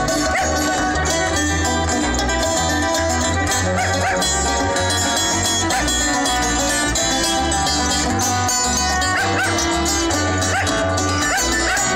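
Acoustic string band playing: banjo and acoustic guitar picking, fiddle melody with sliding notes, over an acoustic bass guitar line that moves from note to note.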